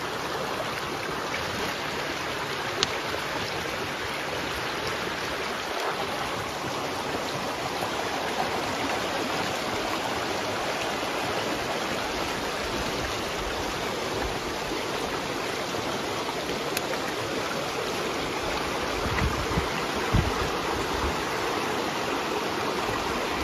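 Shallow river running fast over rocks: a steady rushing of water, with a brief click about three seconds in and a few low bumps near the end.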